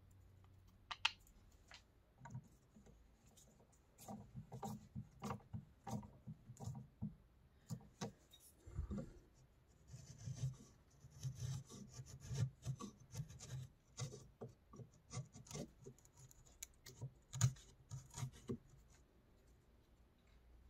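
Steel chisel paring a notch in a small plywood block held in a vise: a run of short scraping strokes, about two a second, with a sharp click about a second in.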